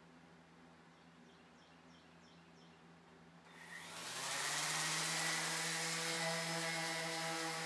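A DeWALT random orbital sander switches on about three and a half seconds in, spins up over about a second, then runs steadily. It is sanding a planed joint on a painted wood ceiling beam flat. Before it starts, a few faint bird chirps are heard.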